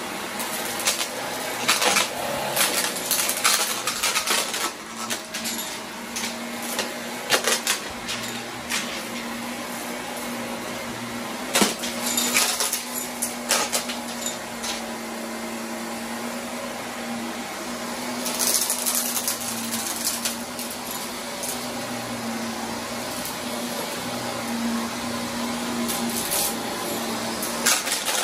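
Shark upright vacuum cleaner running with a steady motor hum while pushed over carpet, with clusters of clicks and crackles as small bits of debris rattle up into it.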